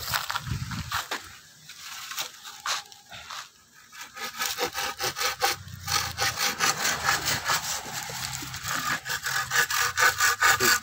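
Hand pruning saw cutting through a green bamboo stem in quick, even back-and-forth strokes, steady from about four seconds in. Before that there are a few scattered knocks.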